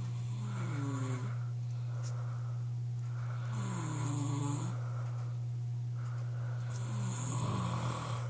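A sleeping man snoring, three snores about three seconds apart, each one dipping and then rising in pitch, over a steady low hum.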